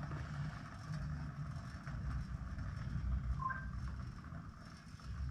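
A metal solar garden spinner turning on its shaft bearing, giving a low, uneven mechanical rumble. A brief two-note chirp sounds about three and a half seconds in.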